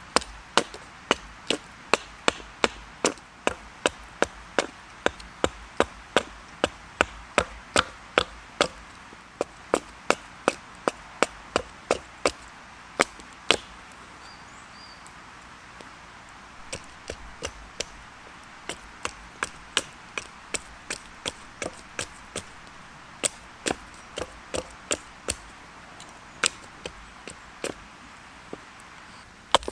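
Chopping strokes of a blade into a piece of willow, about two a second, as a spatula blank is roughed out. The chopping stops for a couple of seconds about halfway through, resumes with lighter strokes, then strikes harder again.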